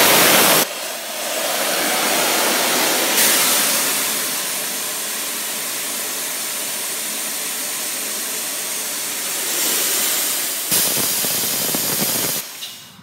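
Compressed air blasting out of the opened drain valve at the bottom of a 60-gallon Quincy air compressor tank, spraying mist: a loud, steady hiss. It drops in level about half a second in, swells again near the end and then cuts off.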